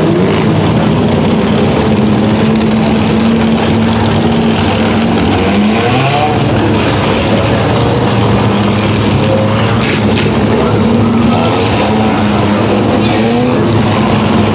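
A pack of pure stock and four-cylinder dirt-track race cars running laps together at moderate speed to pack in the wet track, a steady mix of engines with individual cars rising and falling in pitch as they pass.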